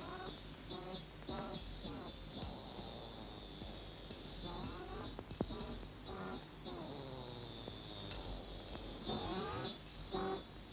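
Steady high insect chirring with a pulsing trill, the summer sound of a garden, interspersed with short pitched sounds that glide up and down.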